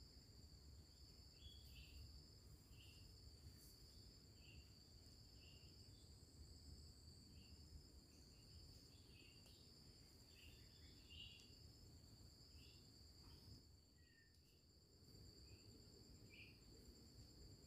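Faint forest insect chorus: a steady high-pitched trilling on two pitches, with short chirps about once a second over a faint low rumble.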